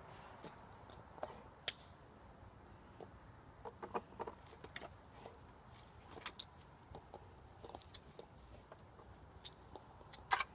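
Two dogs playing with a plastic wiffleball: irregular light clicks and rattles from the ball and the dogs' play, a few to several a second, with no barking.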